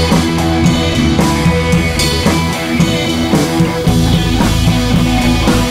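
Background music with guitar and drums keeping a steady beat; the bass gets heavier about four seconds in.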